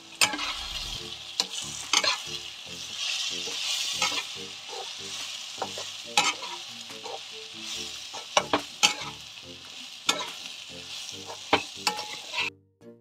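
Semolina (upma rava) being roasted and stirred in a kadai over an onion-and-tomato tempering. A steady sizzle runs throughout, with the spatula scraping and knocking against the pan at irregular intervals. The sound drops out briefly just before the end.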